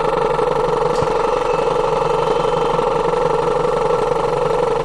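Skoda engine idling with a steady mechanical knock, which the mechanic traces to the high-pressure fuel pump.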